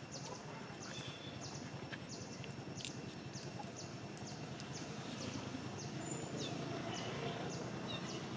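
Outdoor ambience: a steady hiss with a regular series of short, high, downward chirps repeating about twice a second.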